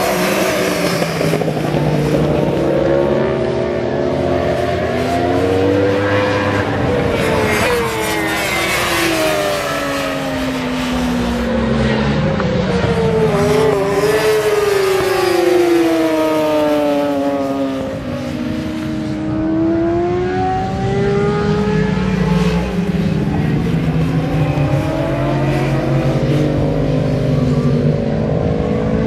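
Several sport motorcycles running laps of a race track, their engines revving up through the gears and passing by. The overlapping engine notes keep rising and falling in pitch as the bikes accelerate and go past.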